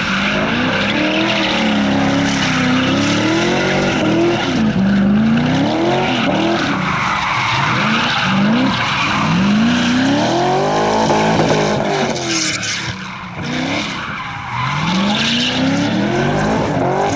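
Drift car's engine revving hard, its pitch rising and falling again and again as the driver works the throttle through the slides, over the constant screech of tyres spinning and sliding on tarmac. It eases off briefly about twelve seconds in, then revs up again.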